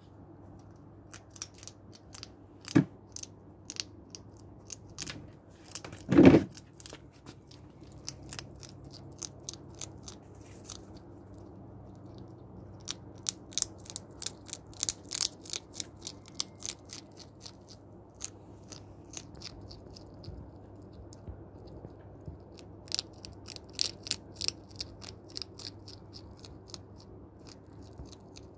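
Hedgehog crunching dry cat-food kibble: quick runs of sharp, crisp crunches in bouts, with short pauses between. A loud thump about six seconds in, and a smaller one a few seconds before it.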